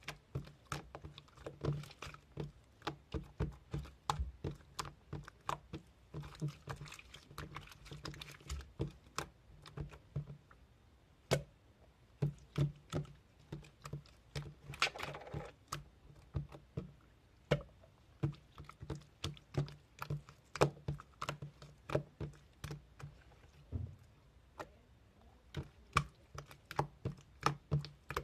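Irregular light clicks and taps, a few a second, with a brief rustle about halfway through.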